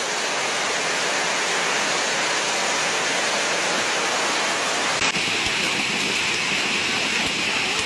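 Hail and rain pelting down in a dense, steady hiss, with scattered small impacts. The sound changes abruptly about five seconds in, turning brighter and harsher.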